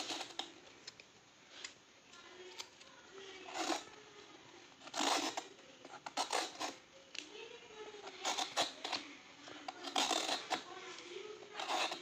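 A bottle gourd being peeled and cut by hand: irregular scraping and slicing strokes, with faint voices behind.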